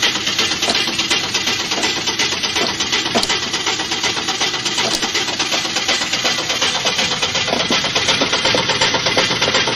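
1955 Chevrolet's starter cranking the engine over continuously in a fast, bouncy rhythm without it catching: a hard start.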